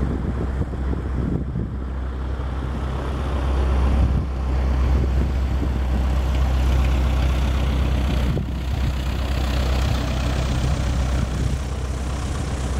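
Douglas DC-3's twin radial engines droning steadily as the airliner approaches from a distance.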